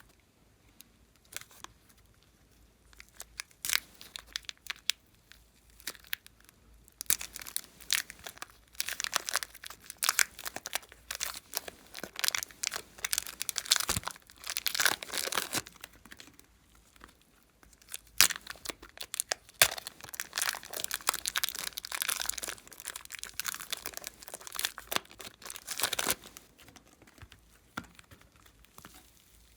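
Glossy slime being squished, stretched and folded by hand, making dense sticky clicks and crackles in two long spells, quieter near the start and end.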